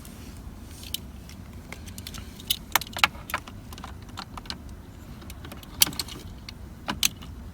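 Hand tools and small metal parts being handled, making irregular sharp clicks and clinks, a few louder, over a low steady hum.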